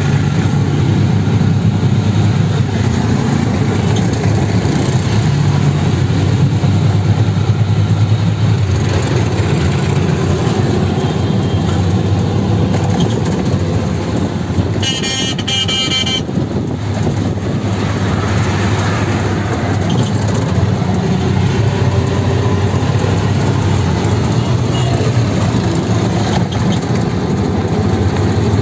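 Auto rickshaw engine running steadily, with road and wind noise, heard from the passenger seat. A vehicle horn sounds for about a second around halfway through.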